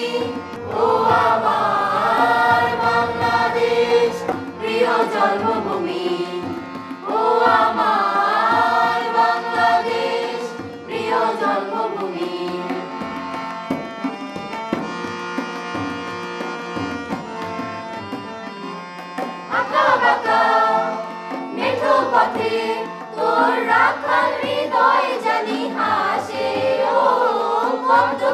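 A mixed group of students singing a Bangladeshi patriotic song in chorus, accompanied by harmonium and tabla. In the middle the voices drop out for a harmonium-and-tabla interlude of several seconds, then the chorus comes back in.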